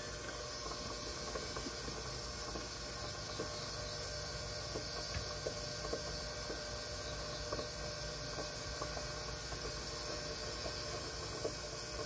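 Benchtop ultrasonic cleaner running a cleaning cycle with its lid on: a steady hiss with a few faint ticks.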